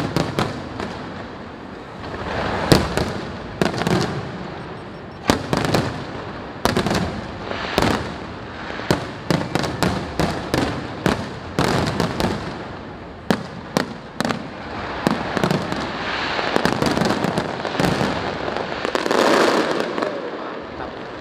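Fireworks display: sharp bangs of bursting shells in quick, irregular succession. Near the end they merge into a louder, denser stretch of crackle.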